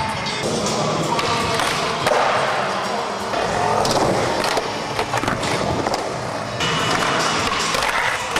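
Skateboard wheels rolling and carving on a skatepark's ramps and flat, with a few sharp clacks and knocks of the board, over background music.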